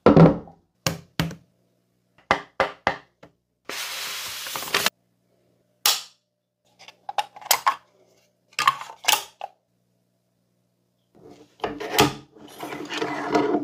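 Browning AB3 bolt-action rifle being handled: a heavy thump against the wooden table at the start, then a series of sharp mechanical clicks from its trigger, safety and bolt, with a rasp lasting about a second near four seconds and a denser clatter of the bolt being worked near the end.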